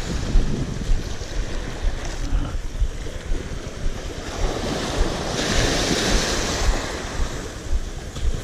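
Small waves washing up over a sloped concrete edge and draining back, swelling louder for a couple of seconds about halfway through. Wind buffets the microphone throughout.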